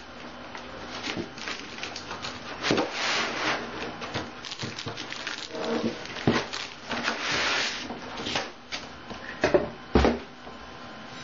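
Packaging rustling and scraping as a laptop in its foam end caps and plastic bag is pulled up out of a cardboard box, with two sharp knocks near the end.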